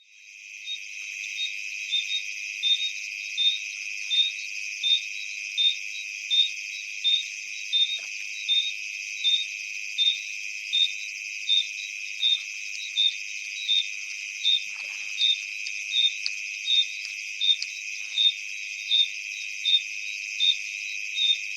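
African jungle ambience: a dense, steady insect chorus with a sharp chirp repeating about every three quarters of a second. It fades in at the start, with a few faint lower calls here and there.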